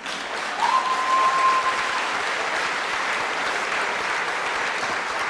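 Audience applause that breaks out suddenly and holds steady, with a brief high whistle about a second in.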